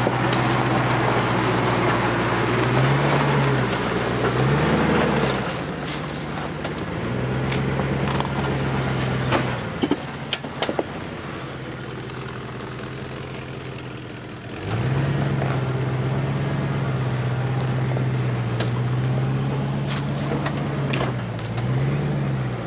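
First-generation (ZJ) Jeep Grand Cherokee's engine pulling under load as it crawls up a steep rock climb, rising in short revs several times. Partway through it eases off for a few seconds, with a few sharp clicks, then comes back on the throttle and holds steady.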